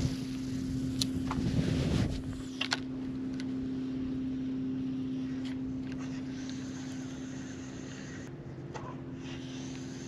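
Steady, even hum of a boat motor running, with a few sharp clicks and knocks in the first three seconds.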